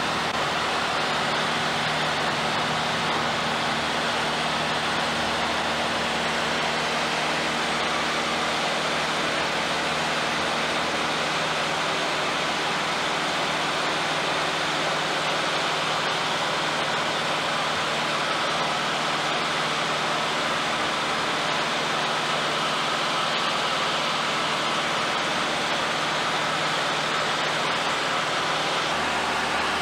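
Aircraft engine drone and rushing air heard inside the cabin, a steady even drone with a constant low hum.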